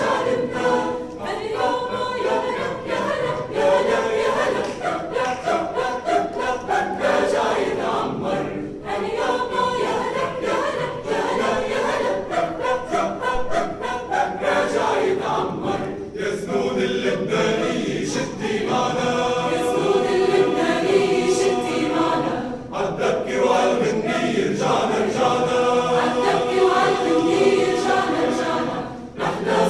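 Choir singing a cappella, many voices in harmony, with several brief breaks between phrases.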